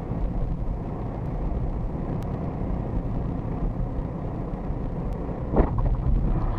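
Steady low rumble of a moving car's engine and tyres, heard from inside the car, with a sudden loud thump about five and a half seconds in.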